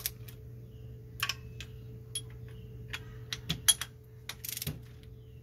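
Ratchet of a click-type torque wrench clicking as the thermostat housing bolts are tightened toward 200 inch-pounds: scattered single clicks, then a quick run of clicks about four and a half seconds in. A steady low hum runs underneath.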